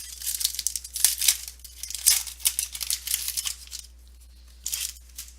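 Foil football card pack wrapper being torn open and crinkled: a rapid crackling run for about four seconds, then a brief rustle near the end.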